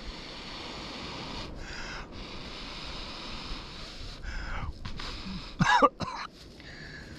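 Short, hard breaths blown into a smouldering dry-grass tinder bundle to coax an ember into flame: three or four blows, the loudest a voiced, cough-like burst about five and a half seconds in. Steady wind and surf behind.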